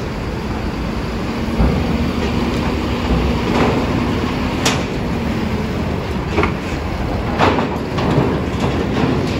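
Mercedes-Benz OH 1526 NG coach's diesel engine running as the bus creeps onto a ferry's steel loading ramp, with several sharp metallic clanks as its wheels cross the ramp plates.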